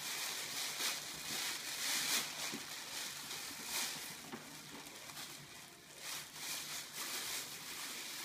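Tissue paper rustling and crinkling in irregular bursts as it is pulled from a paper gift bag and handled.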